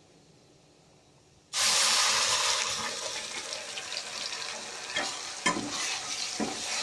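Wet onion, ginger and garlic paste hitting hot oil and ghee in a steel kadai: a sudden loud sizzle about a second and a half in that slowly eases off, with a few clicks of a steel ladle against the pan as the paste is stirred.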